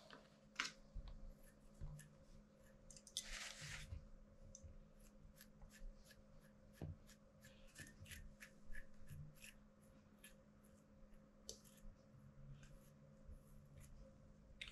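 Faint, quick ticks and rustles of hand grooming tools working through a Shih Tzu's long coat, with a louder rustle a few seconds in.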